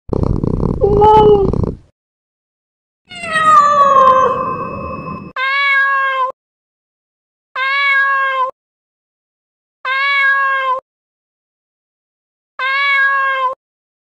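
Domestic cat meowing: two longer meows, the second sliding down in pitch, then four short meows alike in pitch, about two seconds apart.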